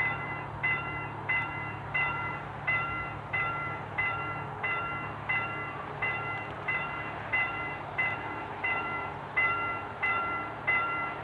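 Level-crossing warning bell ringing steadily, about one and a half strikes a second, each strike a clear ringing chime that dies away before the next. A low steady hum lies underneath.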